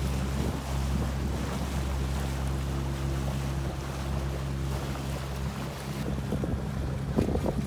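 Small sailboat's motor running at a steady speed under way, with wind rumbling on the microphone and water noise. The wind noise gets choppier near the end.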